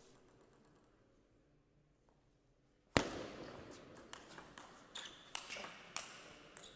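Table tennis rally, with the celluloid ball clicking off the rubber bats and the table. It is near quiet at first. About three seconds in comes one sharp loud crack, then a quick run of lighter clicks about every half second as the ball goes back and forth.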